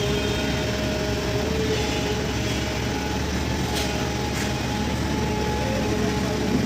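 Long-boom excavator's heavy diesel engine running steadily, with a steady whine over its noise.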